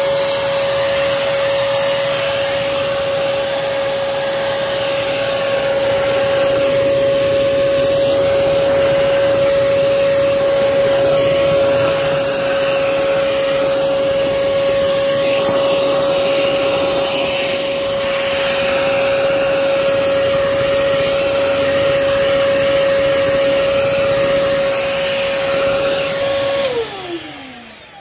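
Hoover Commercial PortaPower canister vacuum running steadily, a loud rush of air with a constant motor whine. Near the end it is switched off and the whine glides down as the motor spins to a stop.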